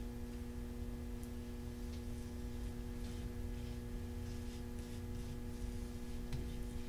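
A steady low electrical hum, with faint soft rustles from fingertips pressing net mesh into wet texture paste.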